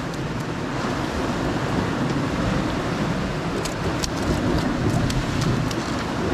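Steady rushing noise of sea surf washing on rocks, mixed with wind on the microphone, with a few faint ticks about four seconds in.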